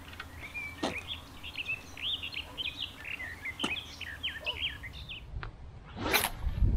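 A small songbird singing a quick, varied run of chirps and twittering notes. A few sharp clicks cut in, and there is a louder rustle near the end.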